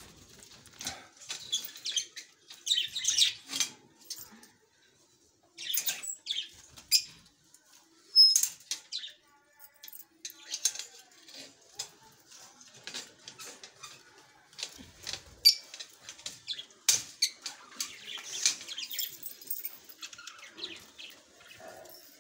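Budgerigars chirping and chattering in quick, high-pitched bursts that come in clusters with short pauses, mixed with wing flutters.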